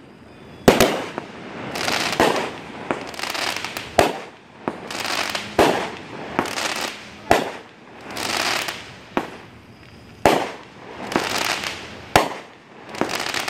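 Aerial fireworks going off: several sharp bangs a few seconds apart, each between them a swell of crackling hiss as the shells burst and their stars burn out.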